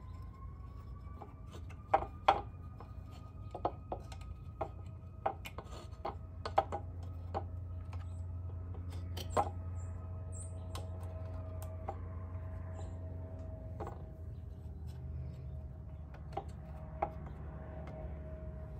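Scattered light clicks and taps of hands working the rubber seal along the rim of a scooter's removed metal CVT belt-case cover, over a steady low hum.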